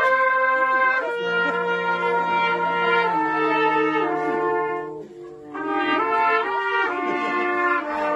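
Brass instruments playing a slow tune in long held chords, with a brief lull about five seconds in.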